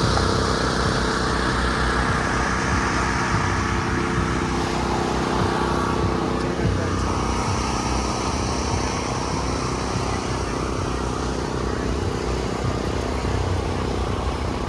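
Motor vehicle engine running steadily, with outdoor crowd noise under it.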